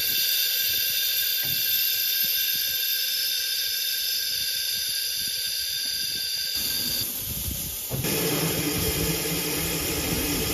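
Steam hissing steadily from the narrow-gauge tank locomotive Southern 762 'Lyn' as it stands in steam. About two-thirds of the way through, the hiss gives way abruptly to a lower, fuller noise with a low steady hum in it.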